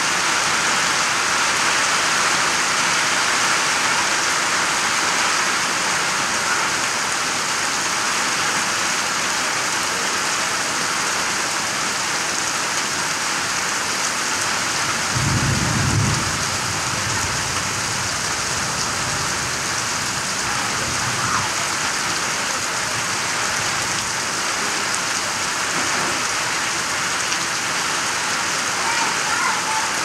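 Heavy rain falling steadily on grass, a dense even hiss. About halfway through, a low rumble of thunder swells briefly and fades away over several seconds.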